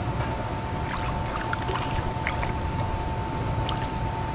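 Steady rush of river water, with small splashes and drips as a netted brown trout moves in the landing net, clustered about one to two and a half seconds in. A steady thin tone runs underneath.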